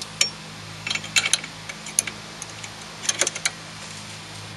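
Irregular small metal clicks and clinks of a wrench on a brake caliper's bleeder valve as it is turned closed, coming in short clusters.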